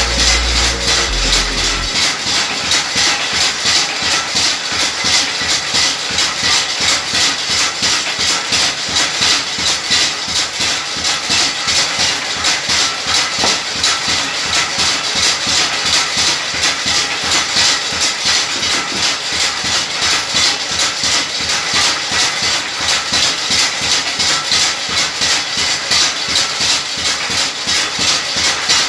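Motor-driven chilli pounding machine running: a steady mechanical clatter of rapid, regular knocks as the pestle pounds red chillies in the mortar bowl, with the belt and flywheel turning.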